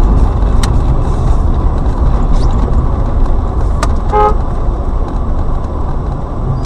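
Steady low rumble of a car's engine and road noise heard from inside the cabin, with one short car horn toot about four seconds in.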